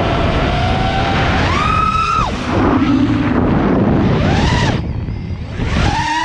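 Brushless motors and 5-inch props of an FPV freestyle quadcopter whining, the pitch surging and dropping with the throttle: a climb about a second and a half in that holds and falls away just past two seconds, a short rise and fall around four seconds, and another climb near the end that holds high. Wind rushes over the onboard camera's microphone underneath.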